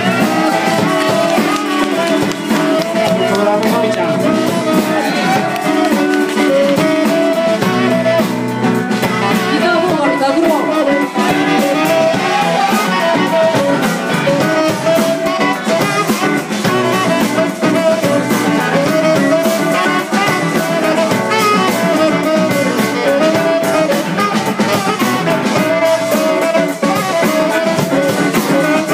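Live band music: a saxophone playing a melody over a strummed acoustic guitar and a drum kit.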